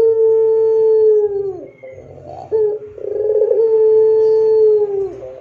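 Puter pelung, a white ringneck dove, cooing long drawn-out coos. Twice a brief rolling start swells into a long held note of about two seconds that drops in pitch at its end, with a short note between the two.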